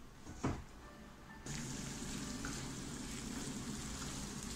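Sliced onions sizzling in olive oil in a frying pan while a spatula stirs them. The steady sizzle starts suddenly about a second and a half in, after a single light knock.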